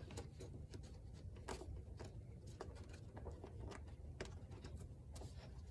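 Faint scattered clicks and rustles of a new panel air filter being handled and tucked into a car's plastic air cleaner box, over a steady low rumble.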